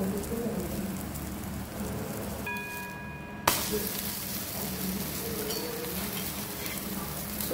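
An egg omelette sizzling steadily on a flat griddle (tawa) as a spatula presses and folds it, with a sharp click about three and a half seconds in.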